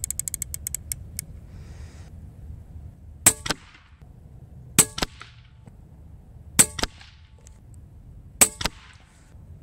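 Daystate Pulsar .22 PCP air rifle fired four times, one shot every second and a half to two seconds. Each sharp report is followed a fraction of a second later by a weaker crack of the pellet striking the target downrange. A quick run of light clicks comes in the first second.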